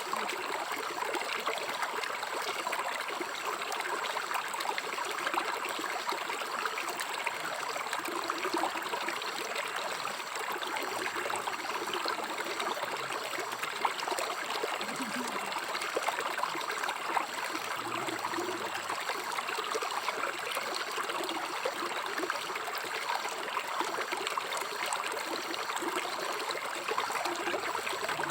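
River water flowing and trickling over rocks, a steady babbling rush with small splashes.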